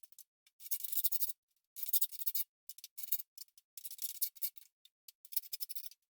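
A trowel scraping refractory mortar against brick in short, irregular strokes, with brief gaps between them.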